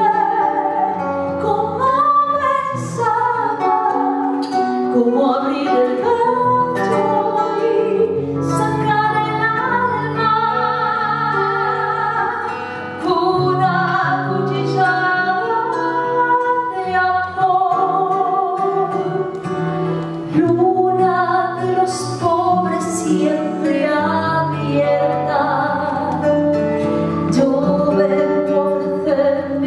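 A woman singing into a microphone, accompanied by an acoustic guitar.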